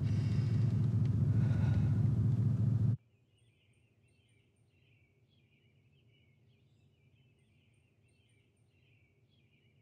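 Low, steady rumble inside a car's cabin that cuts off suddenly about three seconds in, leaving near silence with faint, continuous chirping.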